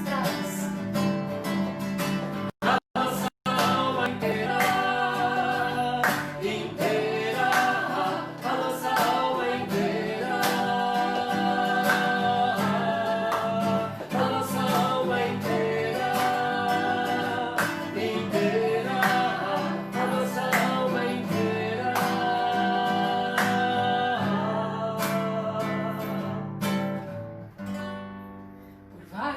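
Acoustic guitar strummed and plucked under a voice singing long held notes. The sound cuts out completely three times in quick succession about three seconds in.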